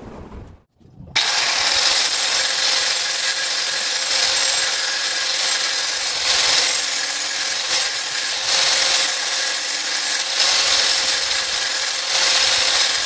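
Handheld angle grinder running with a steady whine, its disc grinding the edge of a steel knife blade to sharpen it; the sound comes in abruptly about a second in and swells slightly as the blade is pressed to the disc.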